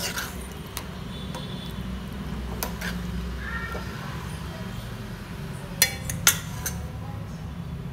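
Metal ladle clinking against a stainless steel pan of thick vegetable kurma: a few scattered sharp clinks, the two loudest about half a second apart near the end, over a steady low hum.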